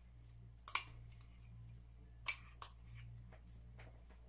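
Plastic spoon scraping mayonnaise out of a small cup and knocking against the cup and a glass mixing bowl: a few light, sharp clicks, one about three quarters of a second in and two close together a little past two seconds, over a faint steady low hum.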